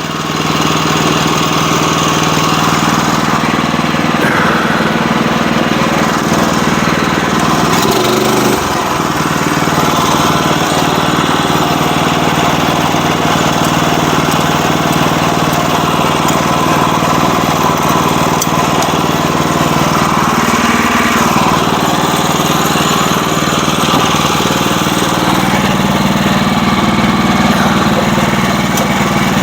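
Sawmill's engine running steadily under load as the mill saws through a log, a loud continuous mechanical drone with cutting noise.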